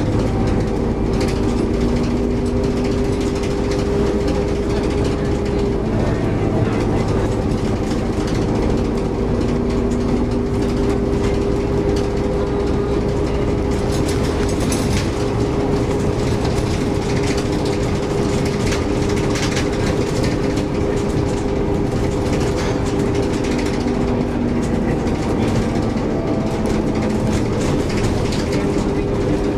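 Cabin noise of a bus travelling at speed along an open road: a steady engine drone with a held hum, over continuous tyre and road noise.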